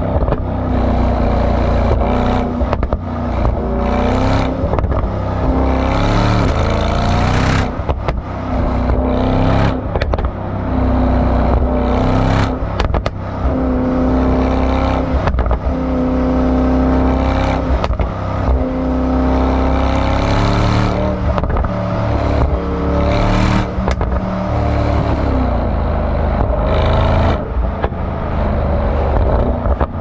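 Mercedes-AMG E63 S's 4.0-litre twin-turbo V8 exhaust pulling hard at speed, its note climbing and breaking off every couple of seconds as it runs up through the gears. Repeated sharp clicks and thumps sit on top of the engine.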